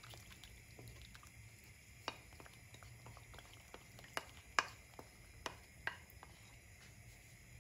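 Wooden spoon stirring lemon and starch lokum mixture through boiling sugar syrup in a coated pan: a faint bubbling with scattered sharp ticks and pops as the spoon knocks the pan.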